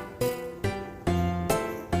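Background music: plucked-string notes over a bass line on a steady beat, a new note struck about twice a second.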